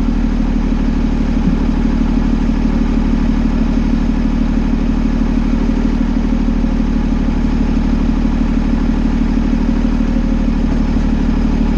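A fire engine's diesel engine idling steadily.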